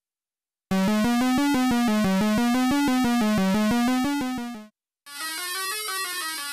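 A synthesized electronic jingle. A fast-pulsing tone steps up and down in pitch for about four seconds and fades out. After a brief gap, a quieter wavering tone rises and falls.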